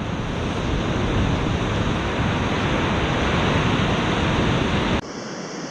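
Ocean surf breaking and washing up the beach, with wind buffeting the microphone. About five seconds in it cuts off to a quieter, steady hiss.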